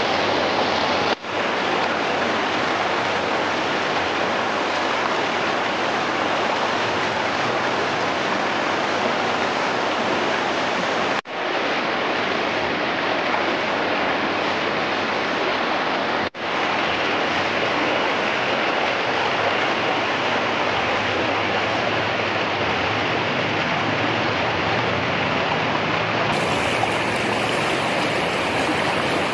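Steady rush of a shallow, rocky river flowing fast over and between boulders. The sound drops out for an instant three times.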